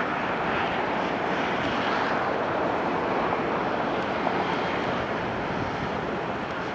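Twin-engine jet airliner just after takeoff, climbing out at takeoff thrust: a steady, even engine noise that holds its level throughout.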